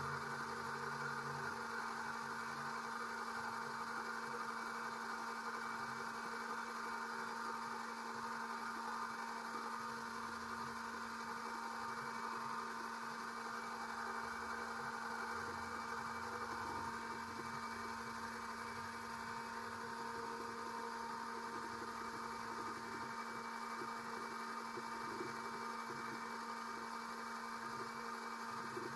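Electric oil extractor pump running steadily, a constant motor hum with a whir, sucking the old engine oil up out of the engine through a tube.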